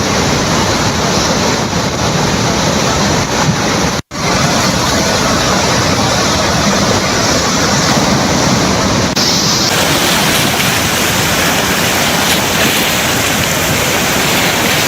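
Floodwater pouring through a dam's open spillway gates: a loud, steady rush of falling water. It cuts out for an instant about four seconds in and changes slightly a little after nine seconds.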